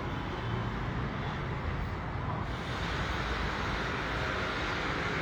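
Steady street traffic noise with the low rumble of passing vehicles, growing brighter and a little louder about two and a half seconds in.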